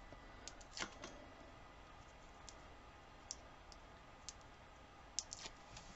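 Faint, scattered small clicks and scratches of fingernails picking at and peeling the backing paper off foam mounting squares stuck to the bottom of a plastic cup.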